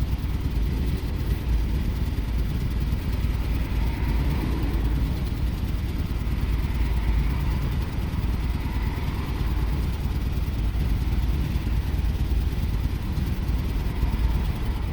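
2006 Jeep Commander's 4.7-litre V8 idling steadily with a random misfire (code P0300, cylinder 6 among the misfiring).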